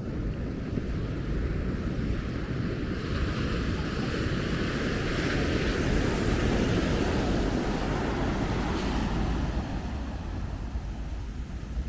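Ocean surf washing on a beach, one wave's wash swelling from about three seconds in, loudest around the middle and easing near the end. Wind buffets the microphone throughout.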